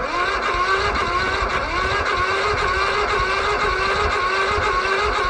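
Lawnmower's electric starter motor, jumped with 12 volts straight from a car battery, whining as it cranks the frozen engine steadily for about five seconds and then stopping; the engine does not catch.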